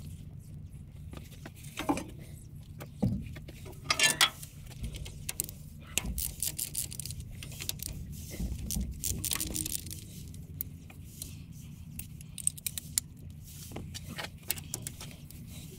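Hand tools working bolts on a tractor's steel housing: a wrench and socket ratchet giving irregular metallic clinks, rattles and ratchet clicks, with a few louder knocks in the first four seconds. A steady low hum runs underneath.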